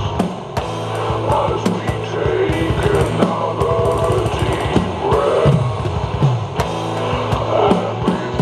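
Tama drum kit played live along to a recorded rock song: drum and cymbal hits over the band's guitars.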